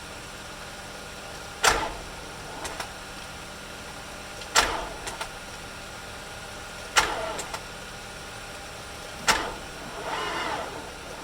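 Four sharp clunks about two and a half seconds apart, each followed by a brief fading whir and a couple of light clicks: the 2006 Infiniti FX45's starter engaging in short bursts while the engine fails to start.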